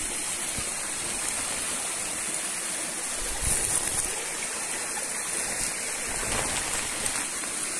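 Mountain stream running over rocks: a steady rushing water noise, a little louder about three and a half seconds in.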